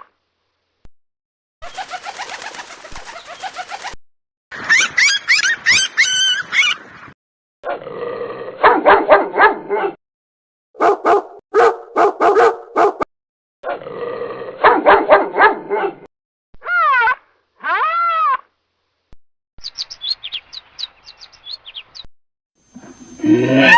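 A run of different animal calls and cries, one after another, each lasting two or three seconds with short silences between: some are pitched calls that rise and fall, others fast repeated barks or clicks.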